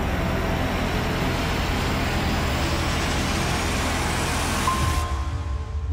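A loud, dense rush of noise with a deep rumble, swelling slightly and then cutting off abruptly about five seconds in, leaving soft sustained music tones.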